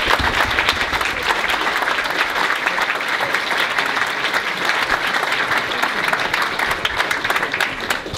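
Audience applauding steadily, many hands clapping, easing off a little near the end.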